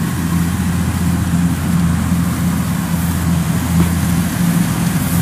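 Kubota DC105X combine harvesters' diesel engines running steadily at work: a constant low drone.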